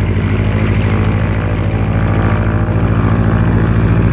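Single-engine propeller aircraft in flight: a steady engine-and-propeller drone that holds one pitch.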